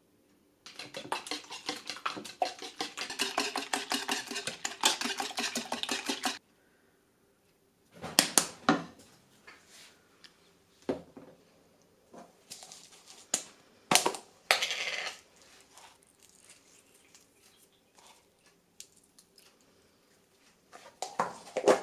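Dishes and utensils being handled: a run of rapid clicking and rattling for about six seconds, then several separate knocks and clinks.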